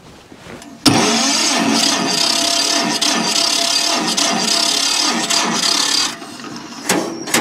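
Electric starter cranking a John Deere G's two-cylinder engine for about five seconds without it catching, an even rasping churn with a faint whine, then stopping, with a single click about a second later. The engine is hard to start: it has been firing on only one cylinder.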